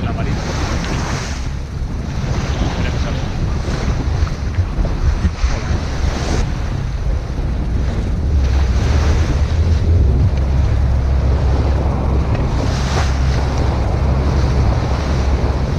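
Wind buffeting the microphone over the rush of waves and water along the hull of a sailboat under sail in a choppy sea. The low wind rumble grows heavier about halfway through.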